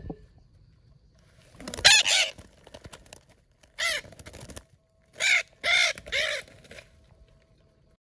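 Parrots squawking: about five loud, harsh calls in a loose series, the first about two seconds in.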